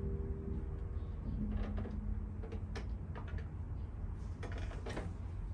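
The last notes of a concert pedal harp ring and die away within the first second, followed by a handful of soft, scattered clicks and knocks over a low steady room rumble.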